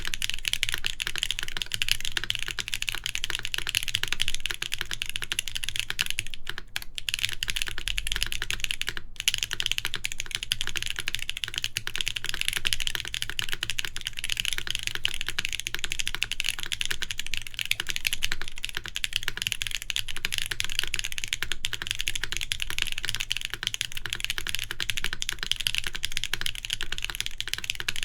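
Continuous fast typing on a mechanical keyboard: a Nayeon TKL with KTT Waverider switches on an aluminium plate and GMK Shoko R2 keycaps, a dense stream of key clacks with a couple of brief pauses.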